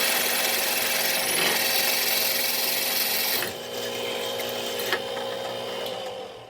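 Shopsmith drill press running, its bit cutting through metal with a loud rasping hiss over a steady motor hum. About three and a half seconds in, the cutting noise drops away and only the quieter running of the machine is left; a single click comes near 5 seconds, and the motor hum ends shortly before the end.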